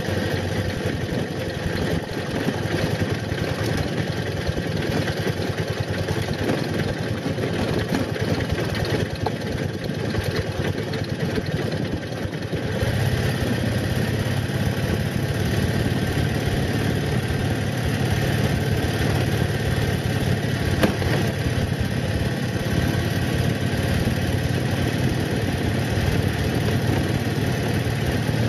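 Motorcycle engine running steadily while riding a dirt track, with a constant hiss of wind and road noise; the engine grows a little louder about halfway through.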